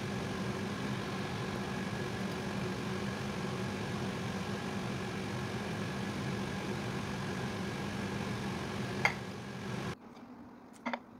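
Steady machine hum of a running motor, with a short click about nine seconds in. The hum cuts off abruptly at about ten seconds, leaving quiet room tone and another brief click near the end.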